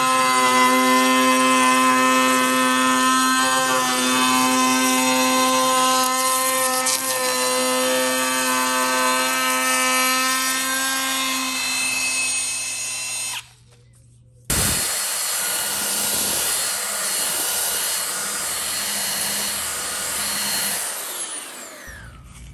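Milwaukee M18 cordless compact router running and cutting along the edge of a wooden board, a steady high whine. It breaks off for about a second midway, then a noisier stretch of routing follows that winds down near the end with a falling whine.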